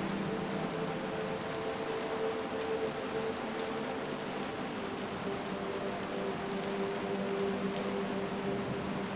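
Steady rainfall with scattered separate drop ticks. Soft, held low tones sit underneath and shift in pitch about halfway through.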